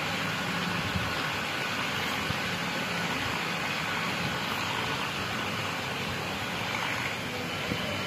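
Diesel engine of a Universal 640 DTC tractor running steadily under load while pulling a plough, heard from across the field as a low drone under a continuous hiss.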